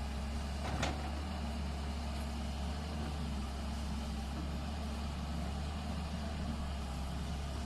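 Tata Hitachi excavator's diesel engine running steadily at a low, even hum, with one short metallic click about a second in.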